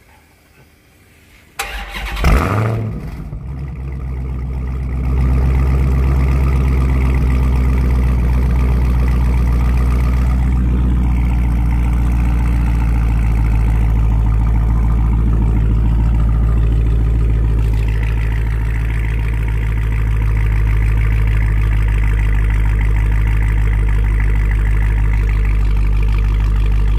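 Dodge Challenger SRT Hellcat's supercharged 6.2-litre HEMI V8, breathing through Kooks long-tube headers and a Borla ATAK exhaust, cranks and fires about two seconds in with a brief rev flare, then settles into a steady idle that rises a little a few seconds later and holds.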